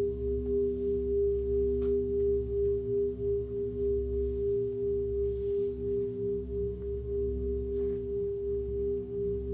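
Sustained drone played back through a looper: a steady, gently pulsing pure tone with a lower hum beneath it, and two faint clicks, one about two seconds in and one near the end.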